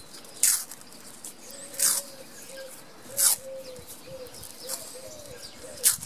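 Wiring harness tape being pulled off its roll and wound around wires, in five short rasps about a second and a half apart. A dove coos faintly in the background.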